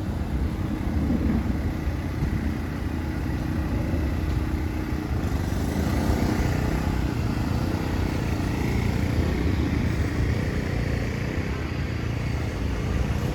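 Steady low rumble of vehicle noise, with engine sound rising and falling slightly and no pauses.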